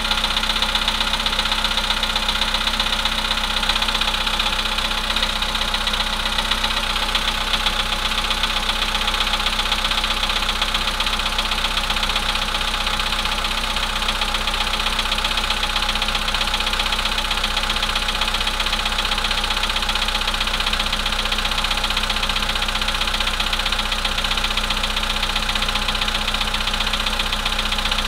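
Volkswagen Polo sedan engine idling cold with a steady, fast knocking, a knock that is progressing, getting worse over time.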